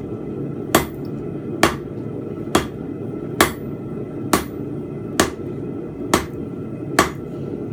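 Tosaky 2 lb rounding hammer forging a fence peg on an anvil: eight ringing blows at an even pace of a little more than one a second, over a steady low hum.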